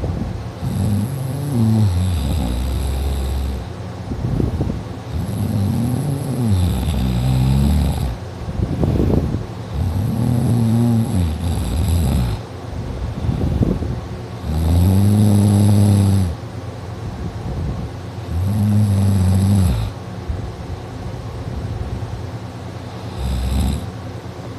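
Loud snoring from a sleeper, sounding like a tractor: long, rasping snores about every three to four seconds, six in all, each rising and falling in pitch.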